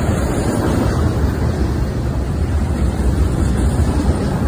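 Double-stack container well cars of a CSX intermodal freight train rolling past: a loud, steady rumble of steel wheels on rail.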